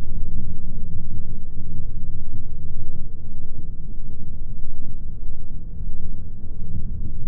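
ATV (quad bike) engine idling, heard muffled through a waterproof camera housing as a steady low rumble, with a few faint clicks.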